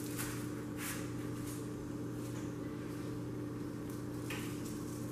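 Steady low hum with a few faint, brief, soft hisses of seasoning being sprinkled onto raw beef chuck roasts.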